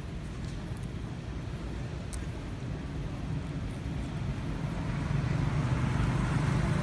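Low rumble of a passing motor vehicle that grows louder over the last couple of seconds.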